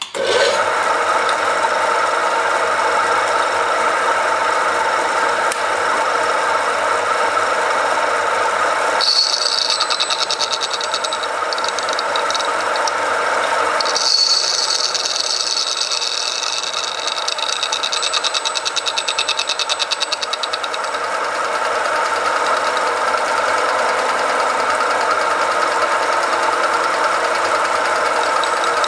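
Mini lathe's 1 hp single-phase motor and spindle starting up and then running steadily, turning a 160 mm backplate. A high-pitched hiss joins from about nine to eleven seconds and again from about fourteen to twenty seconds, as the tool bit cuts across the face of the plate.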